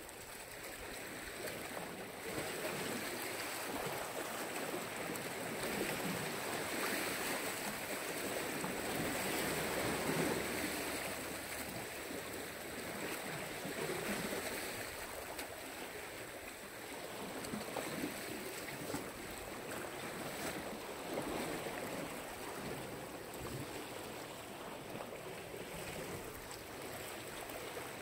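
Sea waves washing onto the shore: a steady rush of surf that swells and eases over several seconds.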